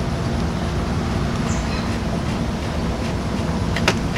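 Steady low background rumble with a faint steady hum, and a single light click near the end.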